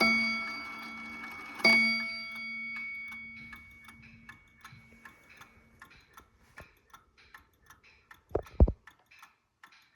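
Seth Thomas 89L movement striking its cymbal bell twice, about a second and a half apart, each stroke ringing on and dying away over a few seconds. Then the clock ticks steadily, with a couple of loud dull knocks near the end.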